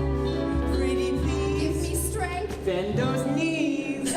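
Live stage-musical number: held low chords from the accompaniment, changing every second or two, with a singing voice over them.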